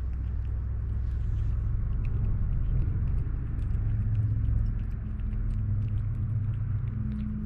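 Kittens eating canned cat food: faint quick chewing and smacking clicks over a steady low rumble.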